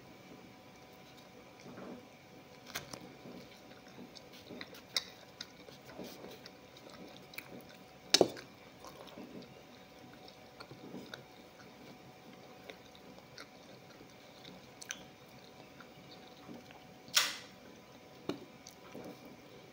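Close-up chewing and biting of a rolled flatbread, soft wet mouth sounds with many small clicks. A few sharp knocks stand out, the loudest two about 8 and 17 seconds in, over a faint steady hum.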